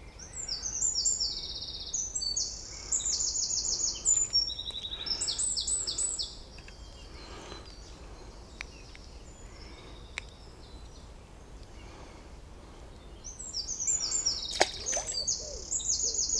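A small songbird singing two long songs made of rapid high trills that step up and down in pitch, one in the first six seconds and another starting about thirteen seconds in. Between them there is only faint outdoor background with a few small ticks, and a sharp click near the end.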